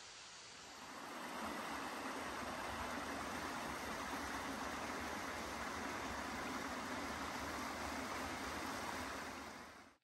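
Small mountain creek running over rocks: a steady rush of water that swells up about a second in and fades out near the end.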